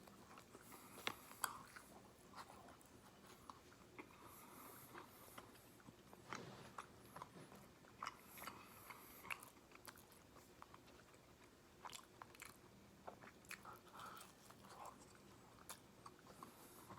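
A person faintly chewing and biting into crispy boneless fried chicken, with scattered crunches and wet mouth clicks. The two sharpest clicks come just after a second in.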